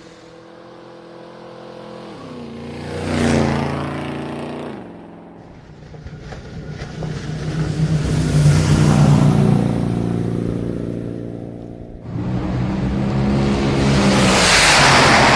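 Car engines revving and passing by in several swells. The engine pitch drops as one passes about three seconds in, and a loud surge starts suddenly about twelve seconds in.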